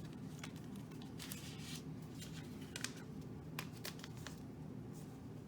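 Trading cards being handled: a few soft rustles and light clicks of card stock and plastic.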